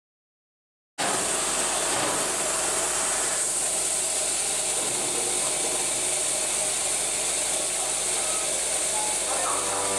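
Pinnacle DV1422 CNC milling machine running: a steady mechanical noise with a strong high hiss that starts suddenly about a second in and holds even.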